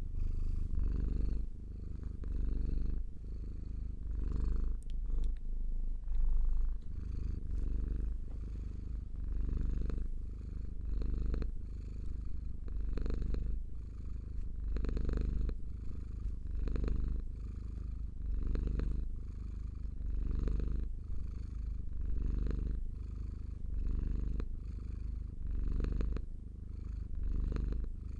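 Domestic cat purring steadily, close to the microphone, the low rumble swelling and fading with each breath about every two seconds.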